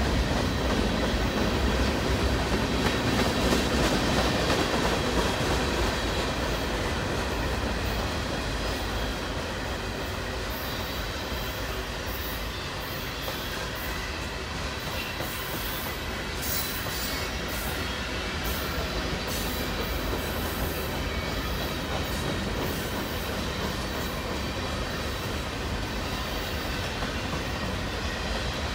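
Loaded freight cars of a long mixed manifest train rolling past, their steel wheels running on the rails in a steady rumble. It is a little louder in the first few seconds.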